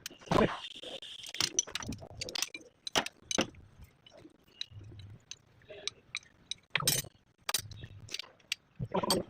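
Irregular sharp metal clinks and knocks of tools and metal parts being handled and set down during tractor hydraulic-lift repair work.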